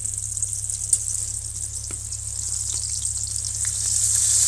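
Whole pointed gourds (potol) frying in hot oil in a karahi: a steady sizzling hiss with scattered pops, growing louder near the end.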